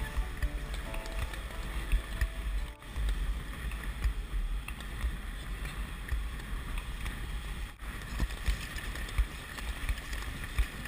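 Wind buffeting the microphone of an action camera worn by a speed skater, a fluttering low rumble, mixed with the steady hiss of skate blades gliding and scraping on ice in a tight pack. The sound drops out briefly twice.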